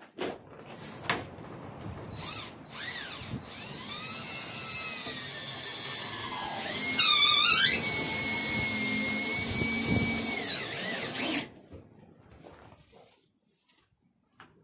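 Cordless drill driving screws into a lid hinge. The motor whine runs for about eleven seconds, rising and falling in pitch, with a brief loud warble about seven seconds in, then winds down and stops.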